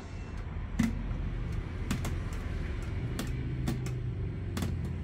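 Scattered sharp plastic-and-metal clicks, about five, from a screwdriver and hands working on a stand fan's oscillation gearbox as it is screwed onto the motor housing, over a steady low hum.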